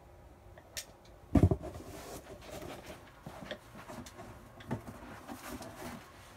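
A single loud thump about a second and a half in, then the scraping, rustling and light knocks of a cardboard shipping box being handled.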